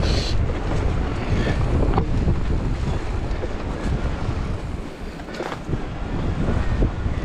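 Wind buffeting the microphone in a steady low rumble as a mountain bike rolls over a rough, stony trail, with a couple of brief knocks from the bike along the way.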